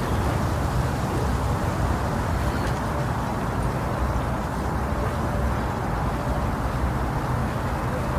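Steady womb-sound noise for lulling a baby to sleep: an even, unbroken rumble weighted heavily toward the low end, with little above the midrange.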